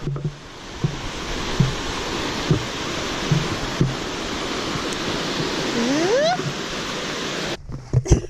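Rushing water of a mountain stream, a steady even rush, with a few soft low thumps and a short rising whistle about six seconds in; the rush cuts off suddenly near the end.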